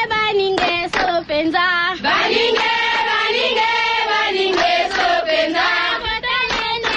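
Radio sound-drop music in a chanted 'tribal' style: a group of voices chanting and singing, broken by several sharp hits.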